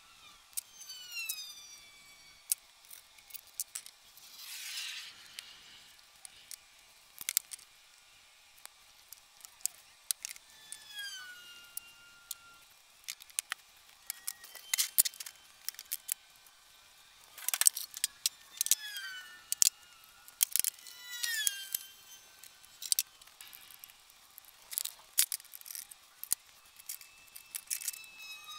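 Steel parts and hand tools being handled on a workbench: many scattered sharp clinks and knocks, with several short squeaks that slide down in pitch.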